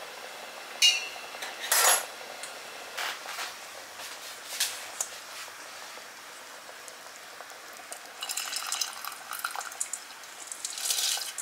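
A few sharp clinks of kitchenware in the first seconds, then from about eight seconds in a spatula scraping soaked rice out of a bowl into a clay pot of azuki beans.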